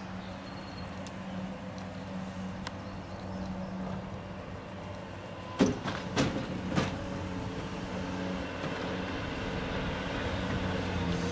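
Skid-steer loader engine running steadily in the background, with three sharp clicks about halfway through as the locking pliers and screwed-in slide-hammer tool are handled.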